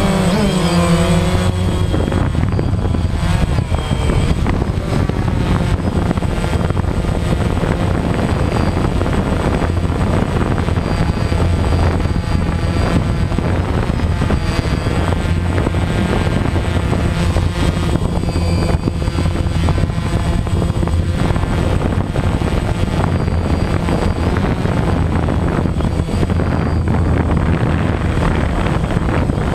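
DJI Phantom quadcopter's motors and propellers buzzing steadily, heard from the camera mounted on the drone, with the pitch shifting slightly as it manoeuvres.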